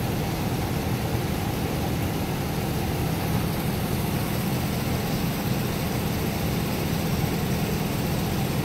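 6.2-litre direct-injection V8 marine engine idling steadily at about 600 rpm.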